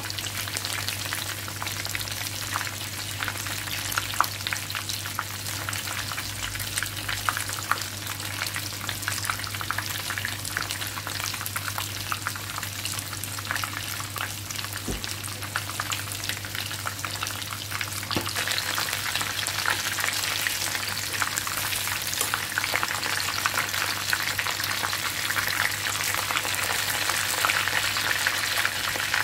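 Egg-and-flour-coated chicken drumsticks deep-frying in hot oil in a pan: a steady bubbling sizzle full of fine crackles, growing somewhat louder about two-thirds of the way through.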